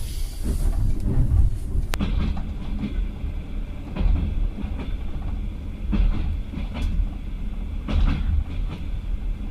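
Passenger train running along the rails, heard from inside a sleeper compartment: a steady low rumble with a short clack about every two seconds.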